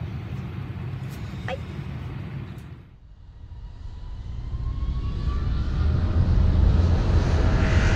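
Jet airliner noise: a steady low cabin rumble, then after a brief drop the engines spool up, with a faint rising whine and a low rumble that grows steadily louder, as on the takeoff run.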